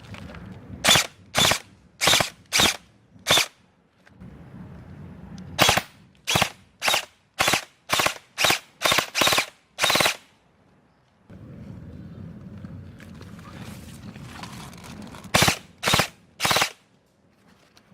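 Airsoft gun firing single shots, about two a second: a string of five, then about ten more, then three near the end.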